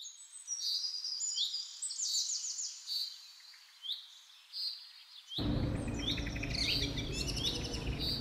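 Small birds chirping: many short, quick calls and trills, some sweeping up, some down. About five seconds in, a low, even background noise comes in suddenly under the birdsong.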